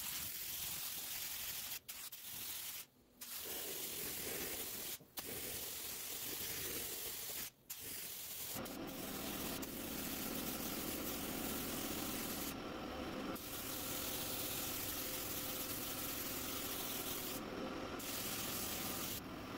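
Automotive paint spray gun hissing as base coat is sprayed with the air pressure turned down, broken off by several brief sharp gaps early on. From about nine seconds in the hiss runs steadily with a low hum beneath it.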